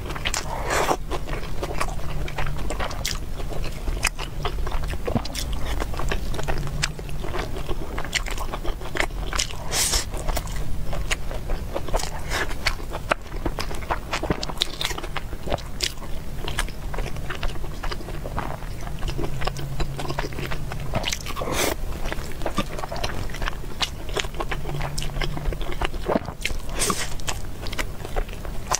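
Close-miked eating sounds: chewing and mouth sounds on mouthfuls of rice and braised meat, with many short sharp clicks as chopsticks touch and scrape the dishes.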